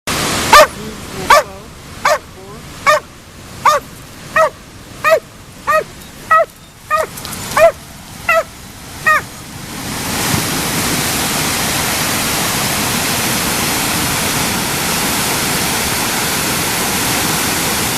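A dog barking about a dozen times at an even pace, each bark dropping in pitch, then from about ten seconds in a steady rush of water from a waterfall.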